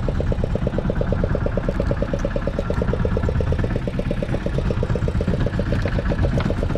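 A fishing boat's engine running steadily at idle, with a regular pulse of about eight beats a second over a low rumble.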